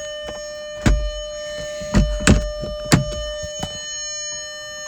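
A few irregular thumps and clicks, about five in all, over a faint steady whine.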